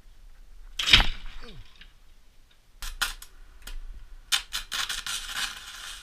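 A loud clatter about a second in. Then a few sharp crackles as the welding arc is struck on steel, and from a little past the middle the steady crackle and spatter of arc welding.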